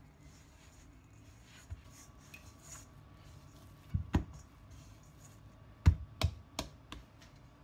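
Enriched bread dough being kneaded by hand in a stainless steel bowl: soft rubbing at first, then a run of dull thumps as the dough ball is pressed and slapped against the bowl, two about four seconds in and four more about two seconds later.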